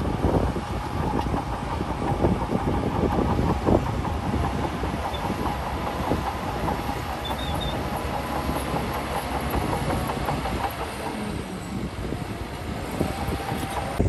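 Crawler bulldozer working, its diesel engine running under load while the steel tracks clank and rattle in a rapid, continuous clatter, with a thin steady squeal above it.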